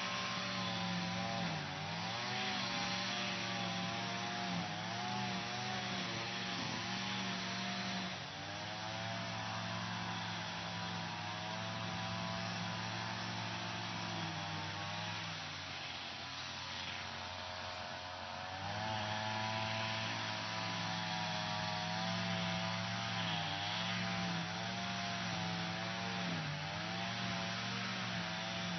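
Lawn mower engine running steadily while cutting grass, its note wavering up and down under the changing load. About halfway through it sags lower and quieter for a few seconds, then picks back up.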